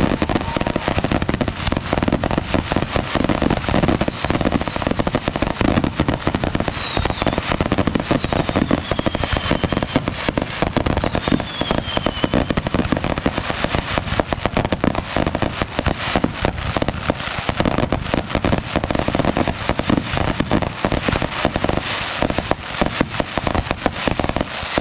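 Fireworks going off in a dense, continuous run of rapid crackling pops, with a few thin whistles falling in pitch in the first half.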